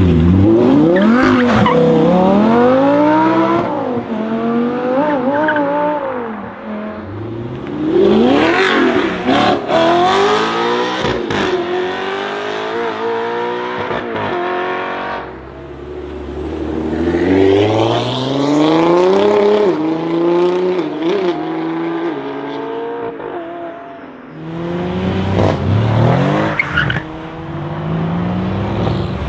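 Audi R8 sports cars and then a Mercedes-AMG C-Class accelerating hard away one after another, engines revving up through the gears. The pitch climbs and drops back at each shift, in about three separate runs.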